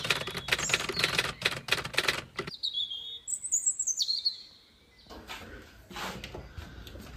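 A quick run of sharp clicks and taps, then high chirping calls that glide up and down, like a small bird, for about two seconds, then more scattered clicks.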